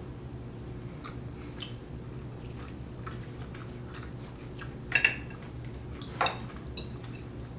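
Eating sounds: small clicks of chewing and handling, with two louder clinks of a fork and knife on a plate about five and six seconds in, over a steady low hum.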